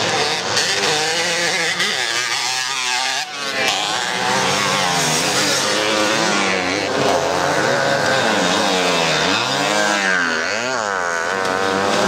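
Several vintage motocross motorcycles racing on a dirt track, their engines revving up and down as they accelerate and shift. Near the end, one bike's engine note rises and falls as it passes close by.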